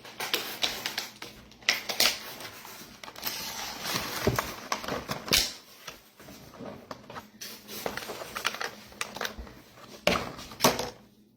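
Kitchen handling sounds: irregular clicks, taps and knocks of bowls and ingredients being moved and set down on a counter, with some rustling between them.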